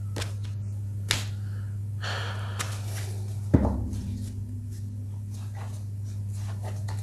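Small handling noises over a steady low hum: a sharp click about a second in, a brief rustle around two seconds, and a dull thump midway, the loudest sound.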